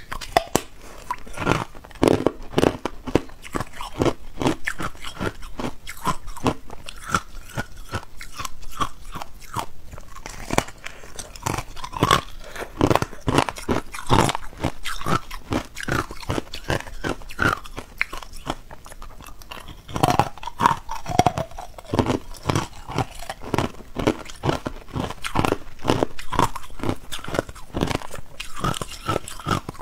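Ice being bitten and chewed up close: hard and crushed ice cracking and crunching between the teeth in a rapid, irregular run of sharp crunches, with louder clusters of bites now and then.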